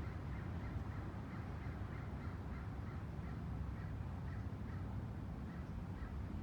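A bird calling over and over, short calls about three a second, over a steady low rumble.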